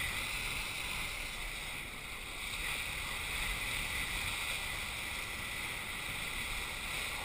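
Kiteboard skimming across shallow water: a steady rush of spray and wind.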